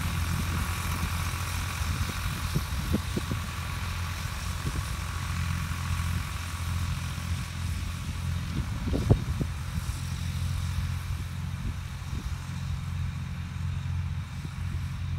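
Ford 4610 tractor engine running steadily while pulling a fertilizer spreader, its higher tones growing fainter as it moves away. A few short knocks, the loudest about nine seconds in.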